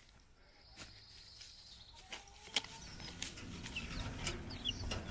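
Faint chicken-yard sound: hens clucking low, with a few short high chirps and scattered clicks.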